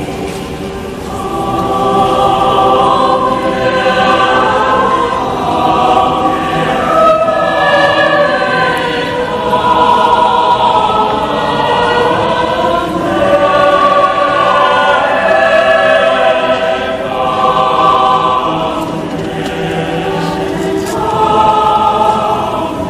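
A large mixed choir singing in full harmony without accompaniment, its sustained chords swelling and easing.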